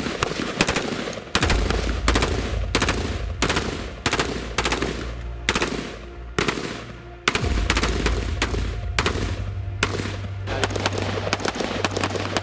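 Colt M4 carbine firing 5.56x45 mm NATO rounds in rapid single shots, about two to three a second at an uneven pace, each crack followed by a short echo. A steady low drone runs underneath.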